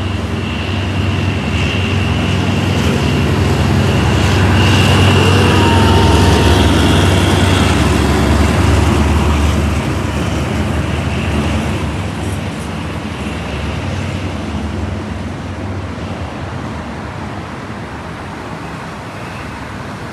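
Hitachi diesel-electric locomotive passing with its train: engine rumble and wheel noise build to a peak about six seconds in, then fade slowly as it moves away.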